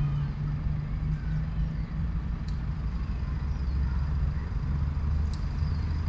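Steady low engine-like rumble with a constant hum, with a few faint high chirps over it.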